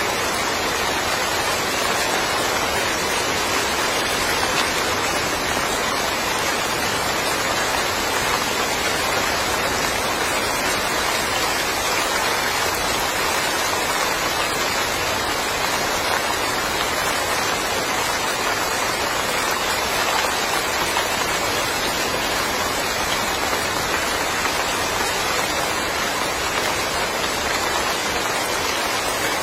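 Steady rain falling and pattering on surfaces, a dense even hiss with no letup.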